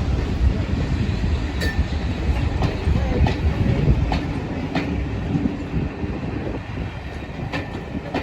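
Steam train rolling along the track: a low rumble with wheels clicking over rail joints at irregular intervals, easing off a little near the end.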